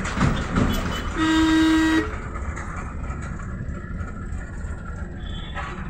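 A vehicle horn sounds one steady blast of just under a second, about a second in, over the continuous low rumble of road traffic.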